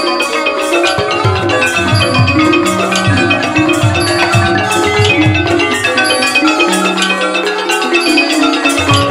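Thai piphat mai khaeng (hard-mallet) ensemble playing an instrumental passage: wooden ranat xylophones and tuned gong circles run in fast, dense lines of struck notes. Low drum strokes come about twice a second from about a second in, drop out around six seconds, and return near the end.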